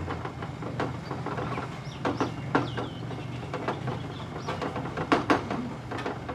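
Scattered metallic clinks and knocks of work over a steady low hum, with a few short bird chirps.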